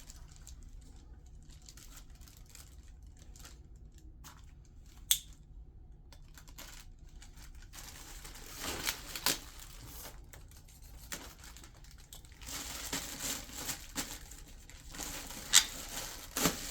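Plastic packaging crinkling and rustling as parts are unwrapped and handled, with sharp clicks and knocks. It is sparse at first and gets busier from about eight seconds in, with one loud click near the end.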